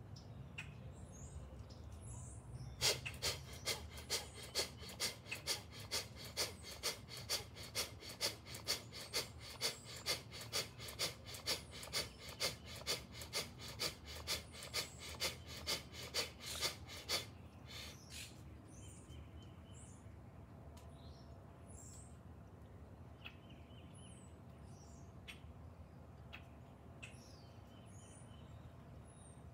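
Bhastrika/kapalabhati pranayama: a run of rapid, forceful rhythmic breaths, about three a second, starting a few seconds in and stopping after roughly fourteen seconds for the pause between sets. Birds chirp faintly in the quiet that follows.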